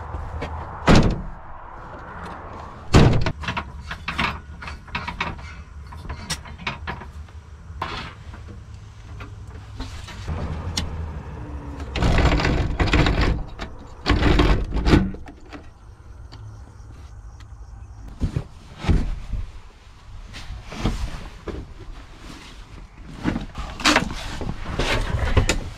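A van's door being pulled shut with a clunk, then scattered knocks, clicks and rattles as fittings inside the van are handled.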